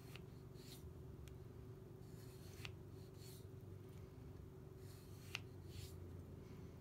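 Chef's knife slicing thin rounds off a beet, the blade clicking faintly on the cutting board three or four times, each click followed by a soft swish, over a steady low hum.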